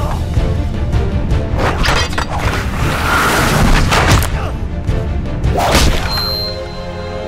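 Film fight soundtrack: dramatic music under a series of sharp hits from wooden staves. A rushing whoosh swells about three to four seconds in, and a heavy impact lands shortly before the end, after which the music carries on with held tones.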